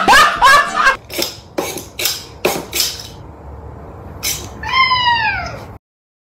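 A domestic cat meows once, a long call falling steadily in pitch, near the end. Before it come several short scratchy noises.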